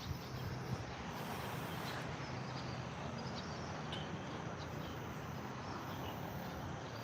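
Steady outdoor background noise with scattered faint, high chirps.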